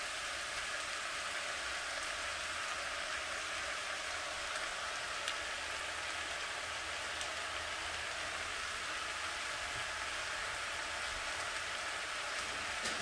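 Stir-fry vegetables and noodles sizzling steadily in a frying pan on a hot burner as teriyaki sauce is drizzled over them, with one small click about five seconds in.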